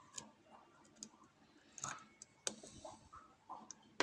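Small metallic clicks and scrapes of a lock pick working inside a padlock's keyway, with about five separate sharp clicks and a short scrape near the middle.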